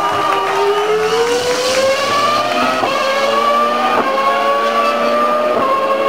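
Renault R25 Formula One car's V10 engine at high revs, accelerating away. Its pitch climbs steadily, broken by two quick upshifts about four and five and a half seconds in.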